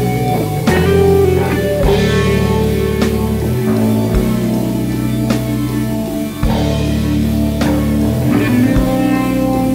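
Intro rock music with guitar and drums, a strong beat falling about once a second.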